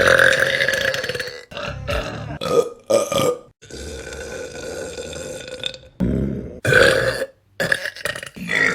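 Women burping: a quick series of burps from separate clips, cut abruptly one into the next, with a long one right at the start.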